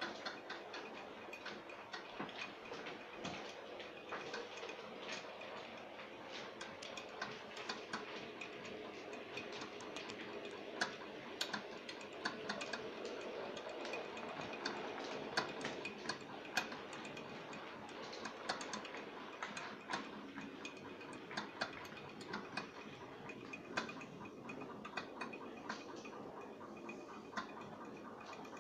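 Model trains running on the layout's track: a steady rolling rumble with many irregular clicks from the wheels on the rails, a little louder about halfway through.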